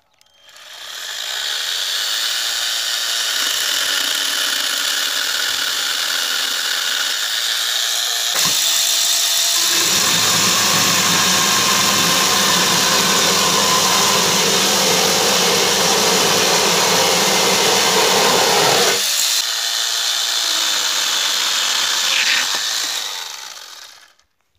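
Cordless angle grinder converted into a small chainsaw, its chain running and cutting through branches and wood; the motor's whine rises and falls as the chain bites. After a sudden change about a third of the way in, a heavier, lower-pitched stretch of cutting fills the middle.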